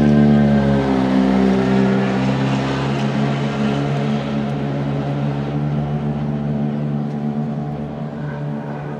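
Mercedes-AMG C63 DTM race car's 4.0-litre V8 running at a steady, even note that dips slightly in pitch about a second in, then grows gradually fainter.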